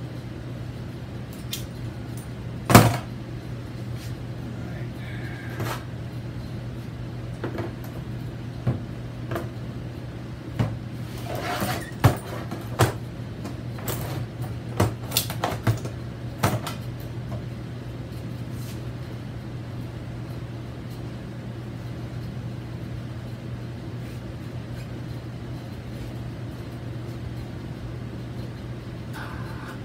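Sharp metal clanks and knocks as C-clamps and a steel plow part are handled and set on the workbench, mostly in the first half, over a steady low hum.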